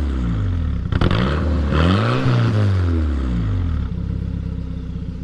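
Volvo 740 Turbo's turbocharged four-cylinder engine being blipped from idle at the tailpipe: it falls back from one rev, is revved again about a second in, and settles to a steady idle near the end.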